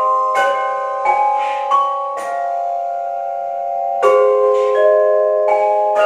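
Two vibraphones played together with yarn mallets: soft-attacked chords and notes that ring on long after each stroke. One chord is left to sustain for nearly two seconds in the middle before the next strikes come in.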